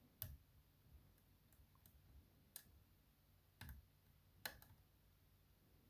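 Faint, sparse clicks of a lock pick working the pins inside an ISEO R6 Plus dimple lock cylinder, about five ticks spread a second or so apart, as pins are probed and set under tension.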